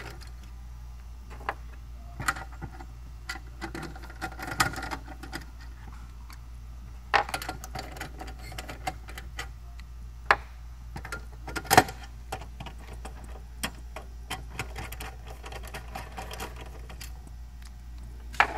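Screwdriver backing out T30 Torx screws from a car amplifier's metal mounting bracket: irregular light metallic clicks and ticks, with a few sharper knocks, over a steady low hum.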